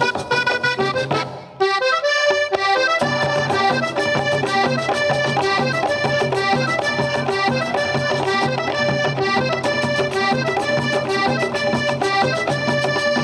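Accordion-led Panamanian folk cumbia with a steady beat. The music drops out briefly about a second and a half in, then comes straight back in, as one cumbia of the medley gives way to the next.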